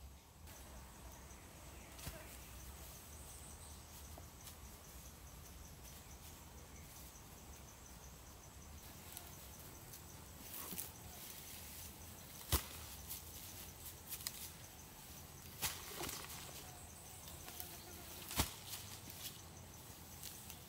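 Faint rustling of bunches of long grass being laid and pressed by hand onto an earthen dugout roof, with a few sharp clicks in the second half. A thin, steady, high insect trill runs underneath.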